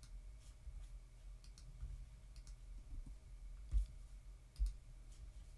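Faint, scattered clicks of a computer mouse and keyboard, with two louder thumps a little past the middle.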